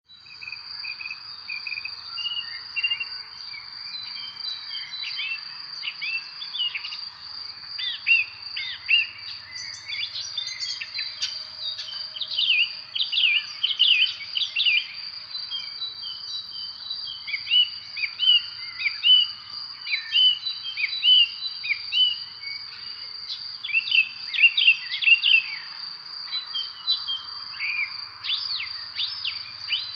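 Many birds chirping and calling in short, overlapping phrases, over a continuous high-pitched insect trill.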